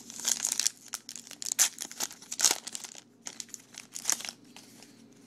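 A trading card pack's wrapper being torn open and crinkled by hand, a run of crackly rustles and tears that dies down to quieter handling near the end.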